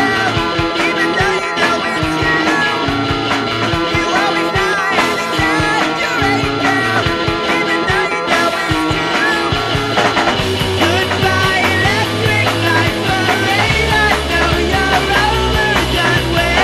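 Rock music with a steady beat; a deeper bass line comes in about ten seconds in.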